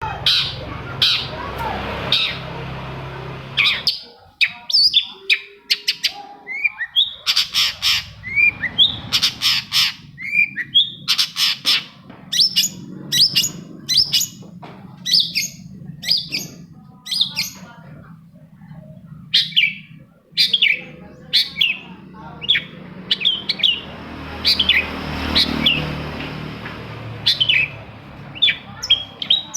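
Long-tailed shrike (cendet) singing a fast, varied song of short, sharp chirps and calls, several notes a second, with brief pauses.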